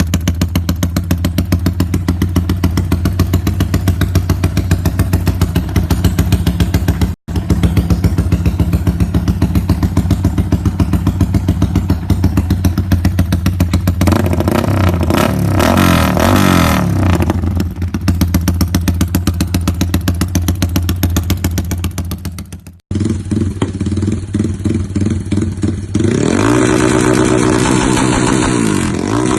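Yamaha Y15ZR motorcycle's single-cylinder four-stroke engine running through an aftermarket exhaust: idling, then revved up and back down, and later blipped in quick revs, with a light clatter under the idle. The sound cuts off abruptly twice and picks up again.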